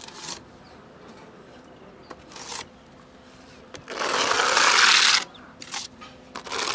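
Steel putty knife scraping wall texture compound: several short scrapes, and one longer, louder scrape about four seconds in as the knife works the compound.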